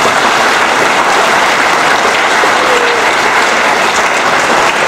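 A large audience applauding steadily in an auditorium, many hands clapping at once.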